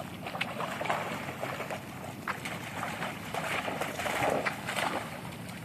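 Two dogs splashing and wrestling in a muddy puddle: irregular splashes and sloshing of water and mud, busiest in the second half.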